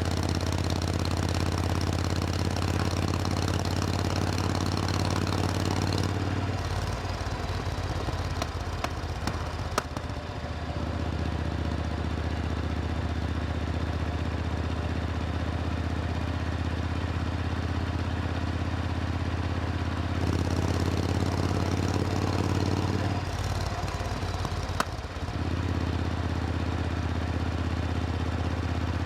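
Supercharged Triumph Thunderbird Storm's parallel-twin engine running with a steady low note. The note breaks up briefly twice, about seven seconds in and again near twenty-four seconds.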